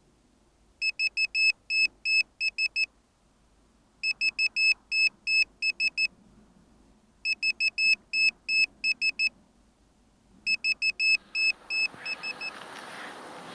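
An electronic beeper sounding short high beeps in quick runs of eight or nine, a run about every three seconds, four runs in all. Near the end a rising rushing noise comes in under the last beeps.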